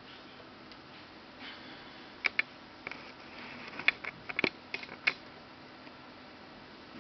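A handful of sharp clicks and taps from a finger working a device's buttons, bunched between about two and five seconds in, over faint room hiss.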